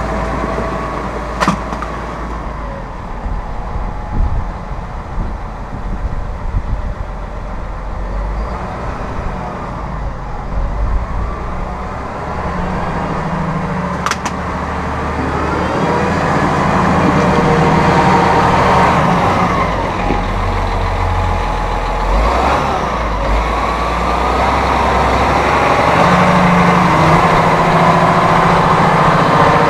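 Massey Ferguson 7624 tractor's 7.4-litre AGCO Power six-cylinder diesel running as the tractor drives off and then comes back close by, louder in the second half, with the engine pitch rising and falling a few times. Two sharp clicks stand out early on.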